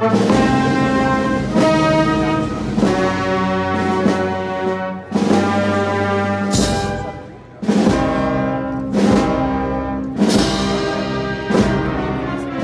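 Brass band playing a processional march: sustained brass chords changing every second or so, with a few drum strikes.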